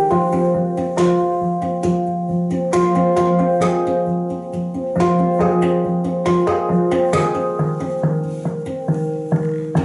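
Handpan played with the hands: quick rhythmic strikes on its steel tone fields over ringing, sustained notes.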